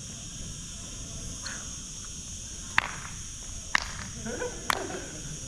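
Sneakers hitting a hard outdoor court as a player steps in and jumps: three sharp slaps about a second apart in the second half. Under them, a steady high insect drone.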